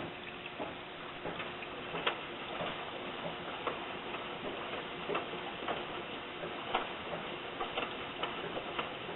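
Indesit Prime PWE7128S washing machine running a wash, with a faint steady motor hum under irregular light clicks and taps.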